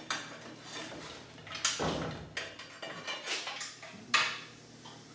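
Irregular metal clinks and knocks from hand tools and bolts being handled while fitting an electric motor to its mounting plate, about half a dozen separate short strikes.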